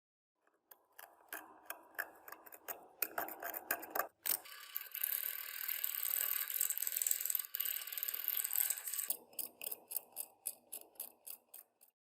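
Rapid metallic ratcheting clicks. A steady high hiss takes over from about four seconds in until about nine seconds in. The clicks then return, evenly at about four a second.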